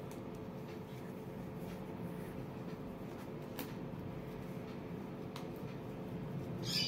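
Faint rustling of hair and an elastic hair tie being wound around the end of a long braid, with a few light ticks, over a steady low room hum; a short, sharper rustle comes near the end.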